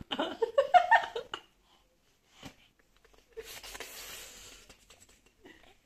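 Laughter for about the first second and a half, then after a short lull a stretch of breathy, voiceless laughter from a woman.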